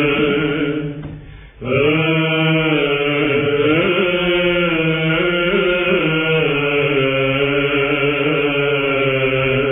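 Byzantine chant: male monastic voices singing a slow, melismatic doxastikon in plagal fourth mode, the melody moving over a steady held ison drone. A phrase dies away about a second in and the singing resumes after a brief pause. The sound is dull at the top, from an old radio recording.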